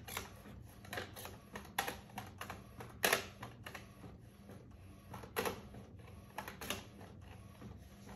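A printer's mechanism clicking and tapping irregularly, with a few louder clacks, over a faint steady hum.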